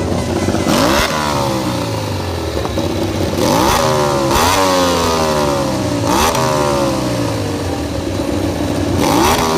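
MotoGP racing motorcycle engines running at a high idle, blipped again and again so the revs shoot up and fall away every couple of seconds.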